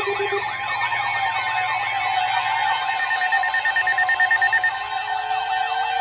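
Several NOAA weather radios sounding their alarms at once for a severe thunderstorm warning: overlapping warbling siren-like sweeps over steady tones. A low pulsed beep stops just after the start, and a higher pulsed beep sounds for a couple of seconds midway.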